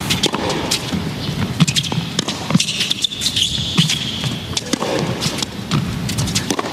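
Tennis arena crowd noise between points: a steady murmur of the crowd broken by many short, sharp knocks and claps.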